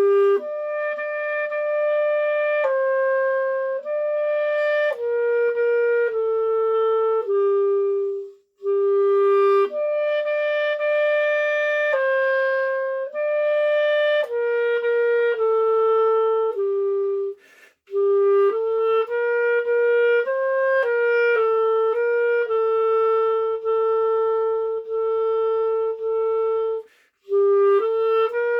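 Solo clarinet playing a slow melody, the first part of a piece, in held notes grouped into phrases. There are three brief breaks between phrases.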